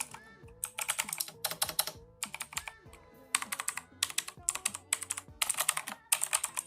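Fast typing on a mechanical gaming keyboard with a metal frame: rapid clacking keystrokes in about a dozen short runs with brief pauses between them. Soft background music underneath.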